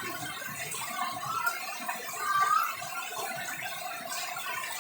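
Steady heavy rain falling, an even hiss, with a couple of short high-pitched voice-like calls about one second in and again about two and a half seconds in.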